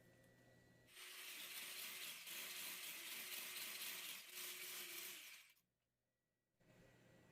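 Electric hand mixer running steadily with a motor hum and hiss for about four seconds, then stopping.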